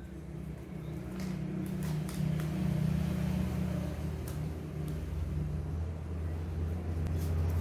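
Motor vehicle engine running, a low steady hum that grows louder over the first couple of seconds and then holds, with a few light clicks over it.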